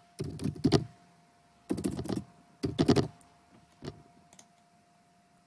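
Computer keyboard typing: three quick bursts of keystrokes as a short word is typed, then two lighter single clicks about four seconds in.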